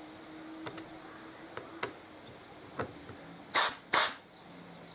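Two short, loud hisses of compressed air from an air blow gun, about three and a half seconds in, fired into a Performance Machine four-piston brake caliper to force its pistons out, after a few light clicks of the gun and caliper being handled.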